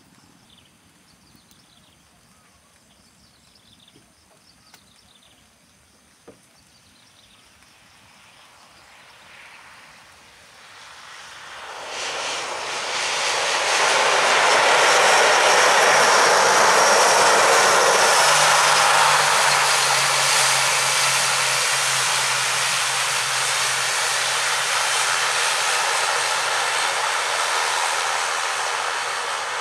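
Wings Air ATR 72-600 airliner's two Pratt & Whitney PW127M turboprop engines and six-bladed propellers, faint at first, then growing loud from about ten seconds in as the landed plane rolls past on the runway. About halfway through, a steady low hum joins the noise and holds to the end.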